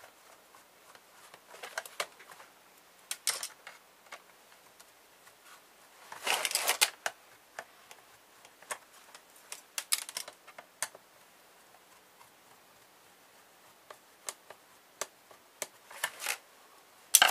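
A small screwdriver and hands working on a plastic laptop base: scattered sharp clicks and taps of plastic panels and small screws, with a longer rattling clatter about six seconds in and smaller bursts near ten and sixteen seconds.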